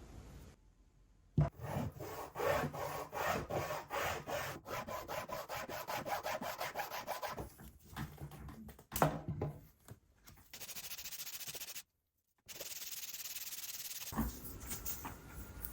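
Hardened cardboard lure blank being filed by hand: a run of rapid back-and-forth rasping strokes, followed after a short break by a steady scraping hiss.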